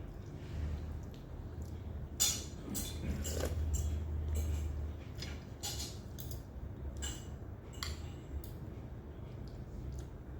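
Spoons and forks clinking against plates and bowls while people eat: a dozen or so irregular light clicks over a low steady hum.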